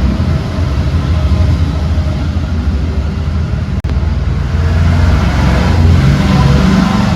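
Steady low motor rumble, loud throughout. It cuts out for an instant about four seconds in, then grows somewhat louder and brighter.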